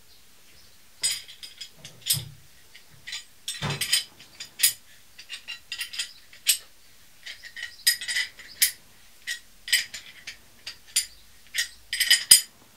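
Irregular light metallic clicks and clinks, starting about a second in, from a hand-held brake-pipe flaring tool being handled and wound in by its handle, forming a double flare on copper brake pipe.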